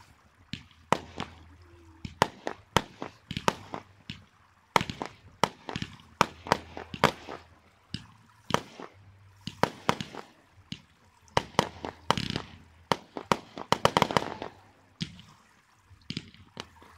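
Fireworks display: aerial shells and comets bursting in a rapid, irregular series of sharp bangs, several a second, with a dense cluster of bangs about fourteen seconds in.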